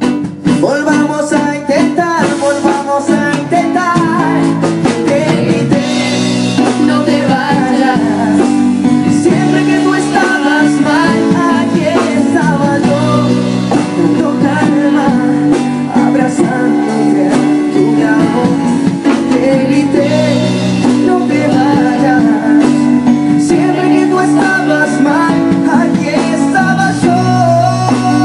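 Live band music: a man singing over guitar and a drum kit, with a steady beat.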